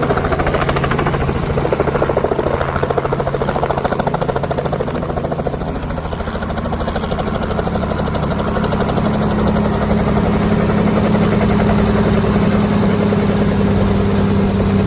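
Helicopter running close by: a rapid, even beat of rotor blades over a steady engine hum. It grows a little louder, with the hum strengthening, from about halfway through.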